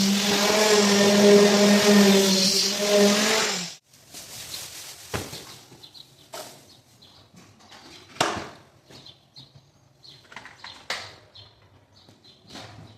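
A power machine's motor running with a steady, loud hum, cutting off abruptly about four seconds in; after that only scattered light knocks and clicks.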